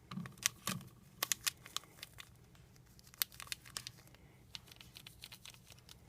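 Irregular crinkling and light clicks from a plastic glitter container being handled while glitter is poured.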